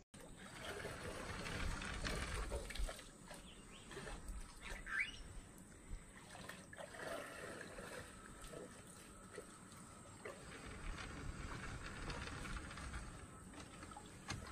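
Faint water trickling and lapping as elephants draw water from a swimming pool with their trunks, with a few faint bird calls.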